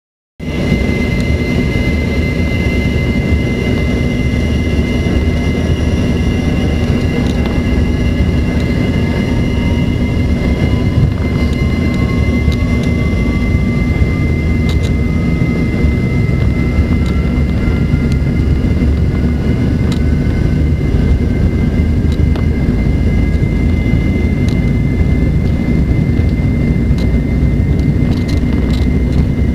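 Embraer ERJ-145's rear-mounted Rolls-Royce AE 3007 turbofans heard from inside the cabin on the takeoff run. The sound cuts in abruptly: a loud, steady rumble under a high, steady whine, with a second tone rising slowly in pitch through the middle.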